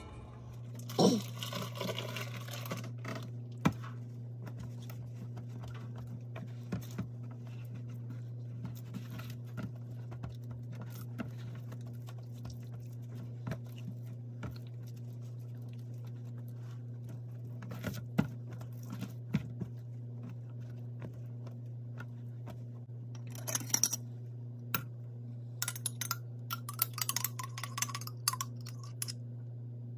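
Food-prep handling sounds over a steady low hum: scattered soft taps and rustles while a raw pork butt is patted dry with a towel, then a run of clicks and squeezes near the end as a mustard bottle is squeezed onto the meat.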